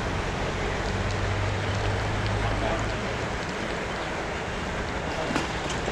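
Steady rushing noise of paddlewheel aerators churning the pond water, with a low hum that is stronger during the first half.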